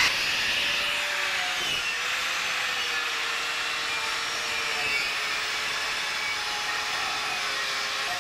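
Angle grinder with a heavy, strong-wire brush head running steadily against a rusty metal barbecue plate, scrubbing the rust off: a steady motor whine over the constant scrape of the wire on metal.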